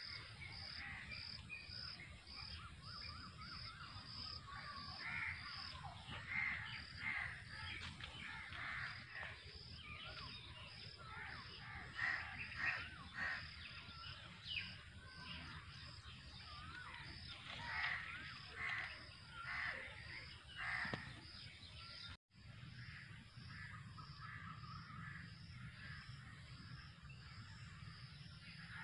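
Crows cawing and other birds calling, over a steady high-pitched chirping that pulses about twice a second.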